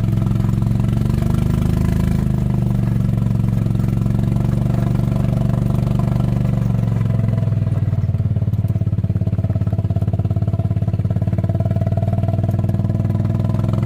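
Small engine of a farm vehicle running steadily as it is driven, its pitch easing down a little midway.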